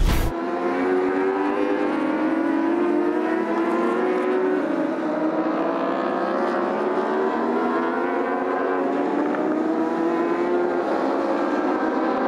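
Endurance racing superbike engine at high revs, its pitch drifting slowly down and back up as the bike goes through a corner, after a short whoosh at the start.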